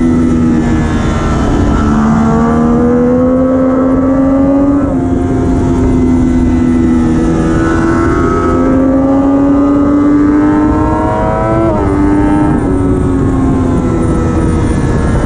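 Onboard sound of a Triumph Daytona 675R's 675 cc inline three-cylinder engine at racing speed, its note climbing in long pulls and falling again, with quick breaks in pitch at the gear changes, the sharpest about twelve seconds in. Wind rushes over the bike the whole time.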